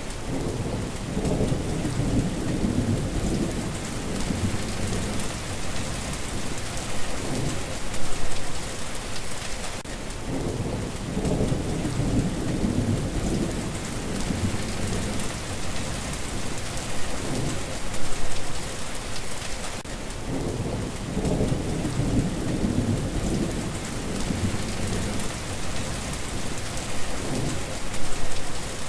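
Steady rain falling, with low thunder rumbles rolling in and out, the same stretch recurring about every ten seconds.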